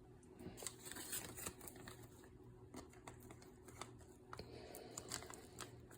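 Faint handling noises: scattered light clicks and brief rustles, over a steady low hum.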